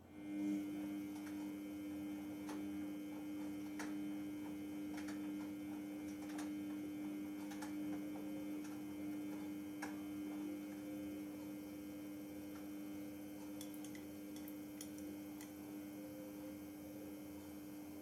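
Samsung Eco Bubble WF70F5E2W2X washing machine's drive motor kicking in at the start of its final spin stage, a steady motor hum. Light knocks of laundry tumbling in the drum come about once every second and a bit, dying away after about ten seconds as the clothes settle against the drum.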